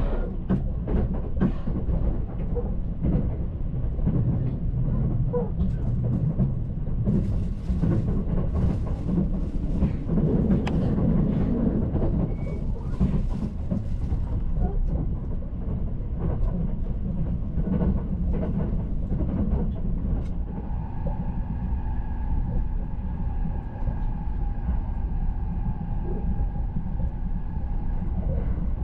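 Limited express Azusa train running at speed on the Chuo Main Line, heard from inside a passenger car: a steady low rumble with the clatter and ticks of wheels on rail. About two-thirds of the way through a steady whine sets in.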